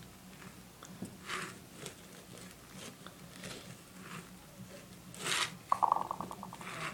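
Popsicle stick spreading and flattening shaving cream on a paper plate: soft, scattered scraping swishes, with a short, fast stuttering rasp of the stick against the plate near the end.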